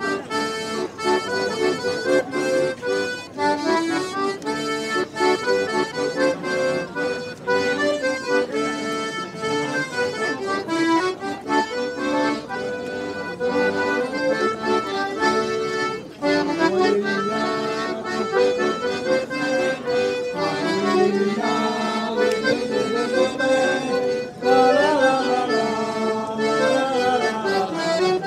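Accordion playing a lively traditional folk dance tune, a melody over steady held lower notes, with brief breaks in the phrasing.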